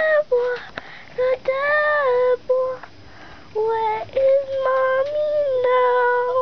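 Young puppies crying with a string of high whines, one after another, some held steady and some gliding in pitch; the last one is held for about two seconds.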